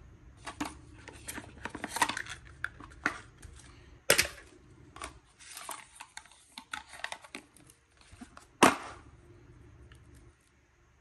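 Unboxing handling sounds: cardboard packaging rustling and tapping as a coiled USB-C cable is lifted out of its compartment, with two sharp knocks about four and nine seconds in.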